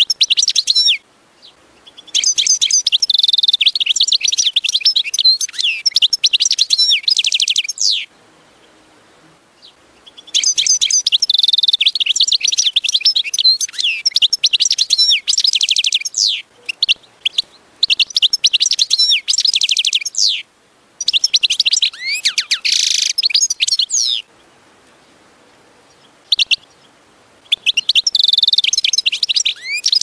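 European goldfinch singing: fast, high, twittering song phrases a few seconds long, broken by short pauses, about five phrases in all.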